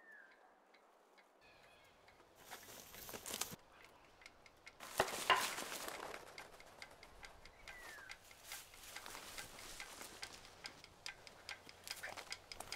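Quiet bushland sounds: a few short, falling bird chirps and rustling, crackling bursts of movement through dry grass and brush, the loudest about five seconds in.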